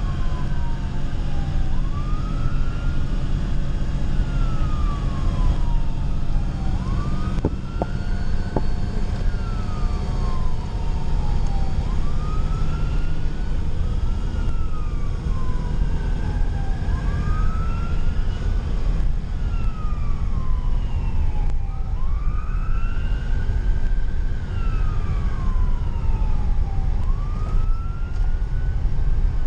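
Fire engine siren on a wail, rising and falling in pitch about once every five seconds, heard from inside the cab over a steady low rumble of engine and road noise. A couple of sharp clicks come about seven and eight seconds in.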